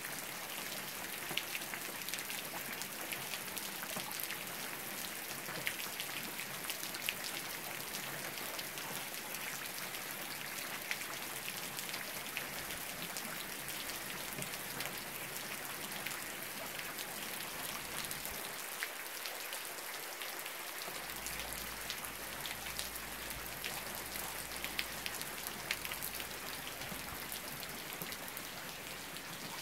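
Steady rain falling on grass, puddles and a gravel lane, with many separate drop hits standing out from the even hiss.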